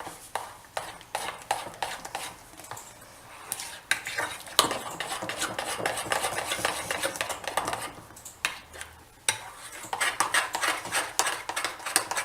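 A kitchen utensil stirring wet besan (gram-flour) batter in a bowl, clinking and scraping against its sides in rapid strokes, with a short lull a little past the middle; the batter is being thinned with added water.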